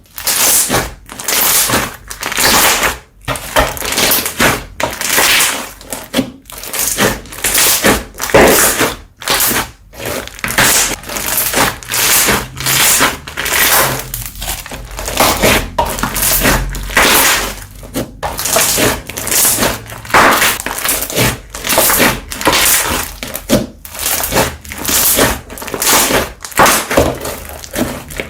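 Slime being squeezed and kneaded by hand: a continuous run of short squishing sounds, about one to two a second.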